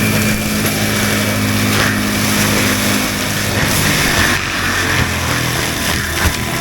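Skid steer at full throttle driving a forestry mulcher head through brush: a loud, steady, noisy grinding over the engine.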